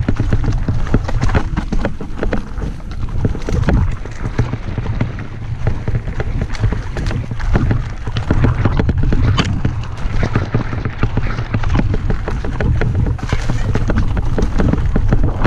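Mountain bike descending a rough trail: a constant irregular clatter and rattle of tyres and bike over many small bumps, over a steady low rumble.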